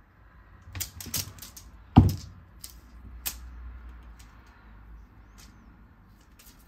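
A cat scampering on a hard wooden floor: quick taps and clicks of paws and claws, with one loud heavy thump on the floor about two seconds in, then a few scattered ticks.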